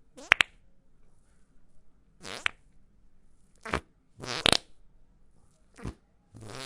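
A run of fart sound effects: about six separate farts a second or so apart. Some are short and sharp, others are drawn out for a few tenths of a second, and the loudest is a sharp double one right at the start.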